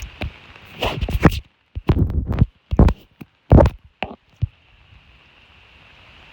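Steady hiss of light rain, broken about a second in by a few seconds of loud, irregular thumps and rustles close on the microphone, with brief dropouts between them.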